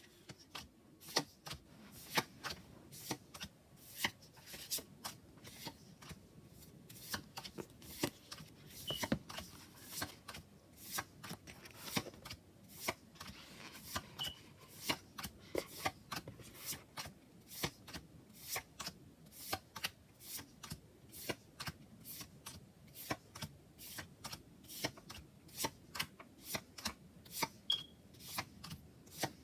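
Tarot cards being flipped through one at a time, each card giving a short crisp snap, about two a second, over a soft papery rustle.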